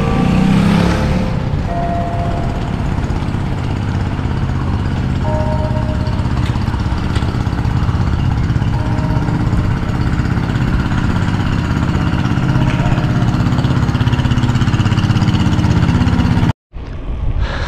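Steady wind rumble on the microphone of a moving bicycle rider, with faint chiming tones now and then from church loudspeakers. The sound cuts out briefly about a second before the end.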